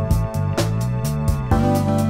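Background music with a steady beat, about four strokes a second, over held notes.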